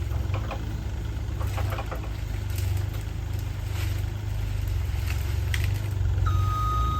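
A large work vehicle's engine running at a steady idle, with scattered knocks and clatter. About six seconds in, a reversing alarm starts beeping as the vehicle backs up.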